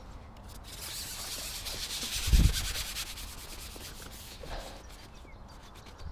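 A rubbing, scraping noise that swells and then fades, with a single dull bump about two and a half seconds in.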